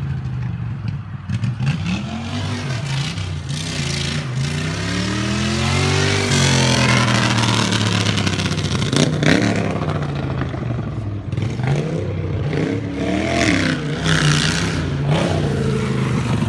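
Racing lawn mower's engine running hard, its pitch repeatedly climbing and dropping as the throttle is opened and eased off.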